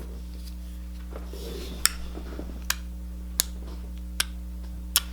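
Silly Putty–type slime being squeezed and poked by hand: a soft squishing rustle early on, then five sharp clicks spaced just under a second apart.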